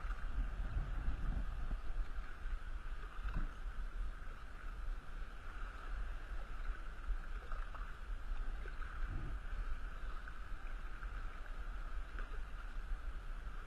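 Paddling an inflatable two-person Intex Explorer kayak: the paddle dips into lake water with a few soft splashes, and water washes along the hull. Steady wind rumble on the microphone runs underneath.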